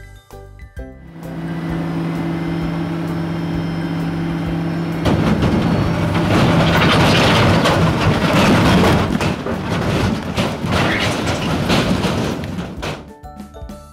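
A dump truck sound effect. A diesel engine hums steadily for about four seconds, then gives way to a louder, rattling rumble that lasts about eight seconds before fading out.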